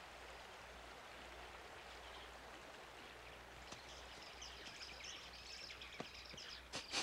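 Faint, steady rush of a flowing river or stream in a cartoon's forest soundtrack, with a couple of short louder sounds right at the end.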